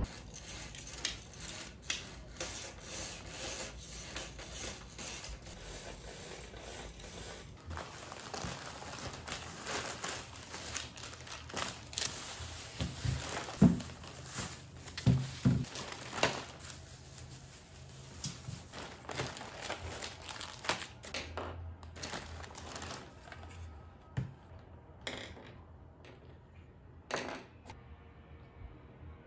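Thin plastic produce bags and snack packaging crinkling and rustling as groceries are handled and unpacked on a table, with a few soft knocks of items being set down.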